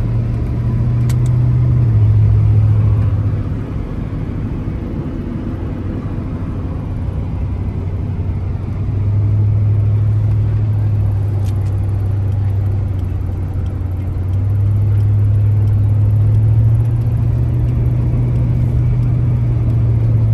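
Vehicle engine and road noise heard from inside the cabin while driving: a low, steady drone that steps in pitch and loudness a few times as the speed changes.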